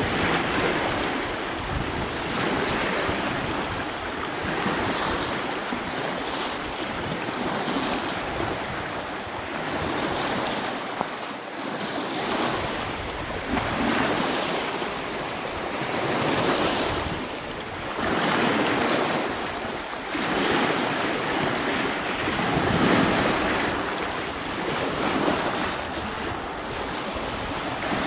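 Choppy lake waves washing and splashing over shoreline boulders, the wash swelling and falling every few seconds, with wind buffeting the microphone.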